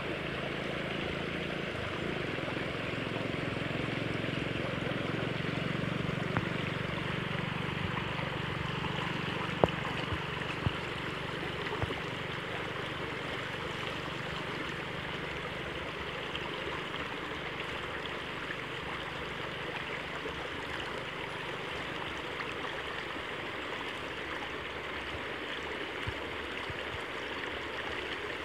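Shallow creek water rushing steadily past a low barrier of grass and stakes. A few sharp knocks about ten seconds in.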